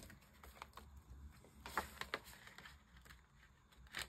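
Faint rustling of paper banknotes and a paper cash envelope being handled, with a few light crinkles and ticks, most of them about two seconds in and near the end.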